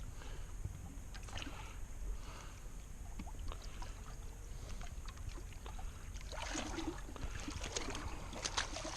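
Background sound aboard a small fishing boat on the water: a steady low rumble with scattered small clicks and knocks, a few more of them coming close together late on.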